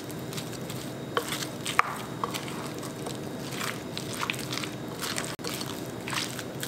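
Wooden spoon stirring mayonnaise-dressed potato salad in a glass mixing bowl: wet squishing with irregular soft clicks and scrapes as the spoon knocks and drags against the glass.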